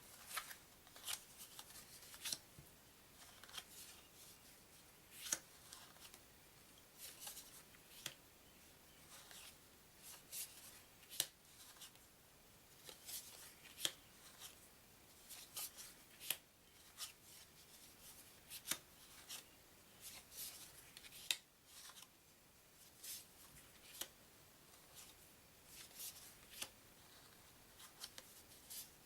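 Paper game cards being handled and set down one after another: faint, irregular flicks and taps, about one or two a second.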